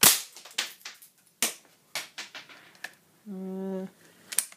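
A .22 air rifle fired into a hard disc drive: a sharp crack at the start, a second sharp crack about a second and a half in, and a string of smaller clicks and knocks between and after them. A short steady hum sounds just past the middle, and two more clicks come near the end.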